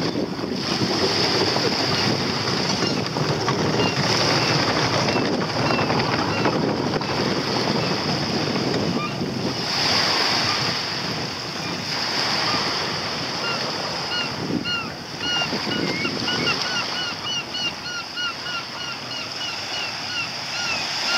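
Wind on the microphone over open sea water, a steady rushing noise with a constant high hiss. From about two-thirds of the way in, a quick run of short high chirps repeats a few times a second.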